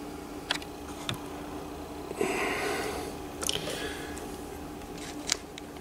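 A person sniffing once, a breathy noise lasting most of a second about two seconds in, over quiet room tone with a steady faint hum and a few small clicks.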